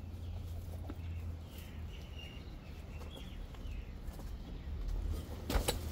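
Rustling and scraping of waders and plants as a person climbs down into a concrete pit, over a low steady rumble, with a few faint bird chirps in the middle and a short, louder scrape about five and a half seconds in.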